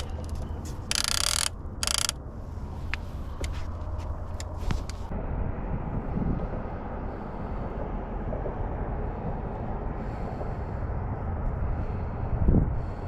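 Wind rumbling on the microphone outdoors, with a few sharp clicks and handling knocks in the first five seconds and a dull thump near the end.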